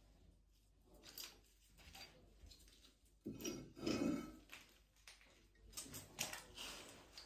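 Faint, irregular clinks and knocks of metal parts and tools being handled, with a louder clatter about three to four seconds in and more knocks near the end.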